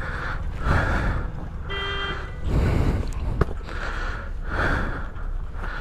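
A person breathing hard, a heavy breath roughly once a second, over a low engine rumble. A short horn toot comes about two seconds in, and a single sharp knock follows a little later.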